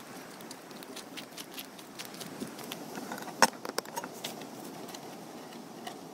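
Steady outdoor background noise with scattered light clicks and taps, the sharpest about three and a half seconds in.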